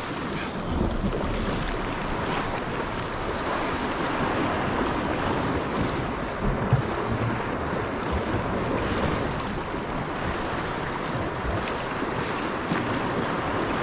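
Wind buffeting the microphone over the steady wash of the sea at the shoreline.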